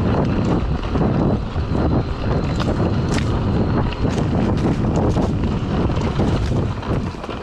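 Wind buffeting the camera microphone as a mountain bike rides down a rough, rocky forest trail, with frequent clicks and rattles from the bike jolting over stones.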